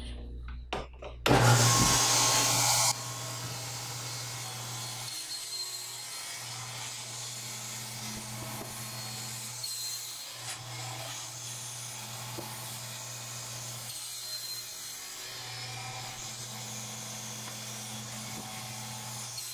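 Table saw running while a crosscut sled carries a sheet of MDF through the blade for a series of test cuts, used to check the sled's fence for square. There is a loud burst about a second in, then a steady motor hum that dips briefly a few times.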